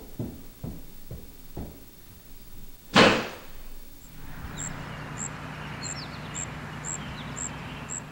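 Footsteps walking off, then a door slammed shut about three seconds in. After the slam comes a steady background hiss with a faint high tick repeating about twice a second.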